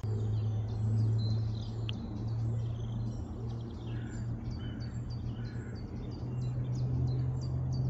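Songbirds chirping, many short high calls that come thicker in the second half, over a steady low drone.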